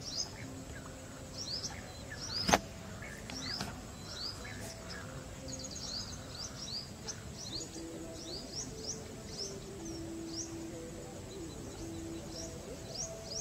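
Birds chirping in many short rising calls, several a second, over soft background music of held low notes. A single sharp click sounds about two and a half seconds in.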